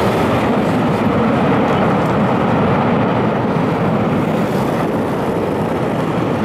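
Airbus A320-214's twin jet engines running at high power as the airliner rolls away down the runway, a loud steady roar that slowly fades.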